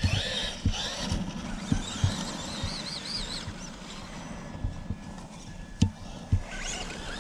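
Electric motor of a distant radio-controlled truck giving a faint, high, wavering whine as the throttle comes and goes. Under it is wind noise on the microphone, with scattered low thumps and a sharp click about six seconds in.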